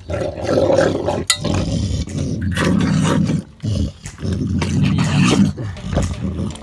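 American pit bull terrier growling in several long, low rumbles with short breaks while eating raw chicken from its bowl. It is a food-guarding warning: the dog is being touched during its meal.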